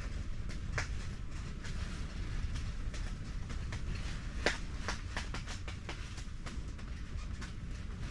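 Wind buffeting the microphone as a steady low rumble, with scattered sharp ticks and clicks on top; the loudest click comes about halfway through.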